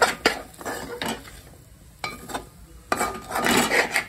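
Steel spatula stirring chickpeas in an aluminium pot, clinking against the pot several times, then scraping along it for about a second near the end.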